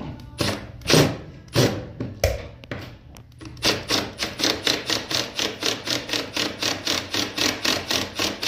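Cordless impact driver on a light setting driving a bolt into a door operator's arm: a few short trigger bursts, then from about three and a half seconds in a steady run of rapid hammering strokes as the bolt is run in.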